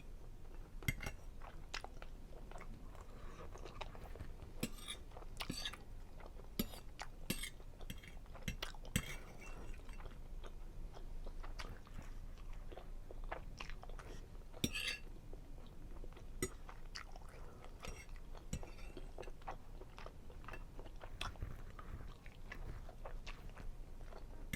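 A person chewing seafood linguine Alfredo up close to the microphone, with scattered short sharp clicks of mouth and utensil sounds.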